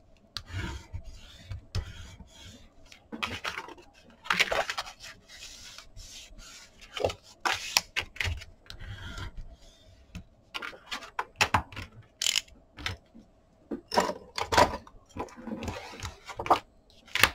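Pieces of kraft chipboard being handled, slid and rubbed against each other and the cutting mat. The result is irregular scraping and rustling with a few short knocks.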